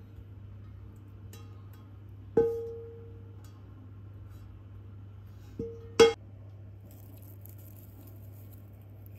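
Cookware clinking against a ceramic bowl as scrambled eggs are tipped in: three sharp clinks that ring briefly. The first comes about two seconds in, and two more come close together a little past the middle, the last the loudest.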